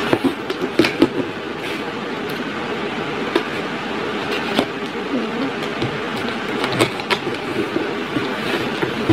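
Box cutter slicing through the packing tape and cardboard flaps of a shipping box: scattered sharp clicks and short scrapes, over a steady hiss like a room fan.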